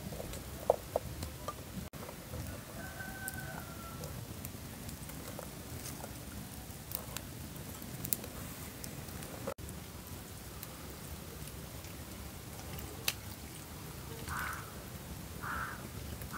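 Scattered light taps and clicks of chopped vegetable pieces dropped into small clay pots and fingers and a knife working on a wooden cutting board, over a steady faint hiss.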